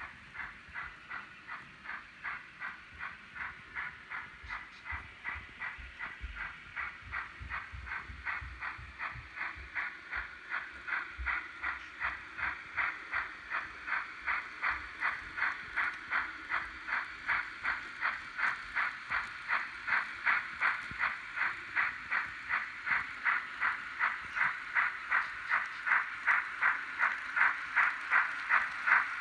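LokSound digital sound decoder in an HO scale Thomas the Tank Engine model playing steam-locomotive chuffing through its small speaker. The chuffs are steady and even, about two or three a second, and grow gradually louder.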